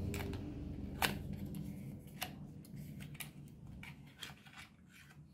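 Cardboard packaging and a small plastic USB charger being handled: a few light clicks and scrapes, over a low hum that fades away in the first couple of seconds.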